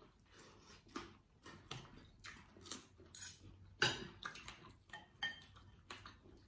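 Scattered short clinks and clicks of a fork and spoon against ceramic plates and a soup bowl while eating, the loudest a little under four seconds in.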